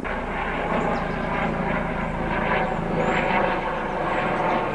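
Helicopter flying overhead: a steady drone of rotor and engine.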